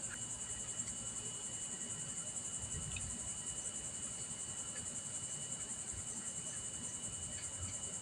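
Crickets chirping steadily in a high, fast-pulsing trill, with a faint small click about three seconds in.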